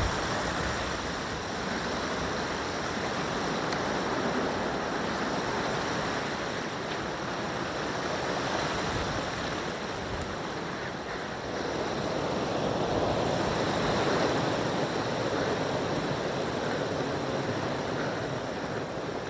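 Wind blowing: a steady rushing noise with no tones or knocks in it, swelling for a few seconds about two-thirds of the way through.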